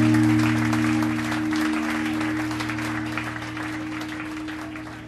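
Audience applause over a held musical chord, both gradually fading out.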